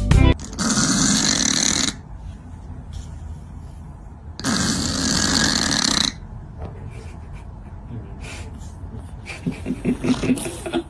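Cat snoring: two long, rasping snores a few seconds apart.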